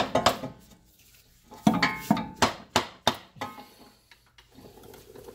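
Honda Prelude driver's-side CV axle being struck to drive its inner end home into the transmission. There are a couple of sharp knocks at the start, then a run of about six knocks, roughly three a second, with a brief metallic ring.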